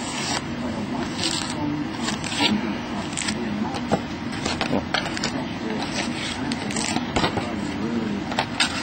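Foil-wrapped trading-card packs being slid out of a cardboard hobby box and set down, with short irregular bursts of crinkling, scraping and light taps over a steady low hum.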